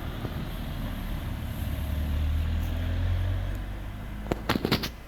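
A motor vehicle passing, a low rumble that builds to its loudest about three seconds in and then fades away. A few short, sharp sounds follow near the end.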